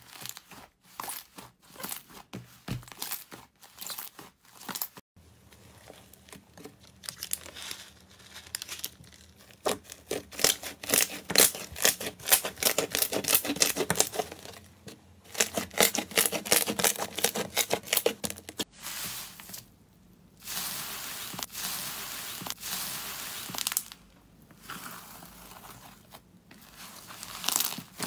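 Hands squeezing, pressing and pulling apart soft cloud and foam slime: sharp clicks and dense runs of small crackles and pops as trapped air bursts, with a steadier rustling hiss in the middle stretch.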